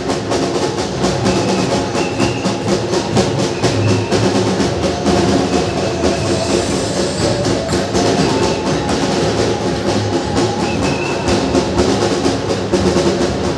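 Loud music with a steady drum beat.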